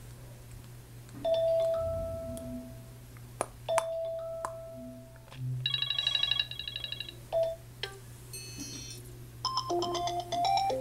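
iPhone ringtone and alert-tone sound files played back one after another, each short: a single fading chime about a second in, another near four seconds, a fast high trill, a few short beeps, then a quick run of notes near the end. Brief clicks sound between them.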